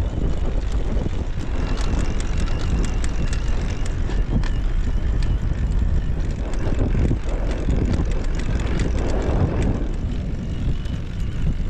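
Strong headwind buffeting the microphone of a recumbent trike on the move: a loud, steady rumble with many small clicks through it.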